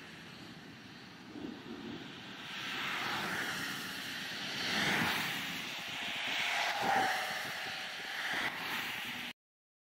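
Cars passing one after another on a wet road, tyres hissing on the wet pavement. The sound builds from about two and a half seconds in, swells twice as cars go by, and cuts off suddenly near the end.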